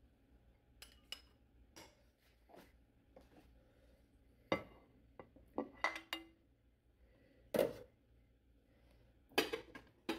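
Kitchenware clinking and knocking as food is dished up: a glass pot lid, a plate and a serving utensil handled. Light scattered clicks give way to louder knocks about four and a half seconds in, around six, near seven and a half, and twice near the end.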